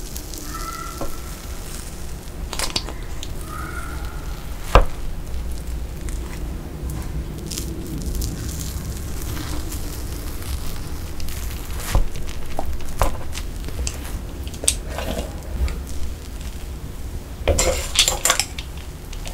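A plastic knife cuts and scrapes through a cream-frosted layered sponge cake, with soft squishing and scraping and a few sharp clicks and taps. The loudest click comes about five seconds in, and there is a busier patch of scraping near the end.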